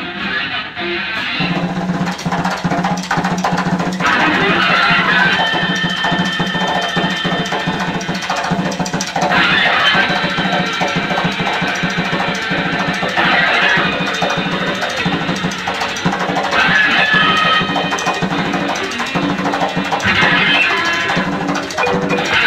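Live improvised noise rock from electric guitars and drum kit, playing at a steady high level. A low droning note comes in about a second in and holds, while bright, harsh high guitar noise flares up every three to four seconds over the drums.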